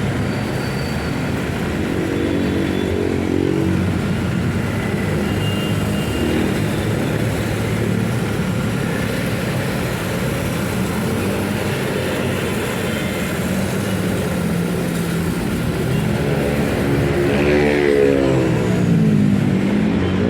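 Pressure washer running steadily under load, its motor and pump giving a constant hum, with the pitch wavering up and down near the end.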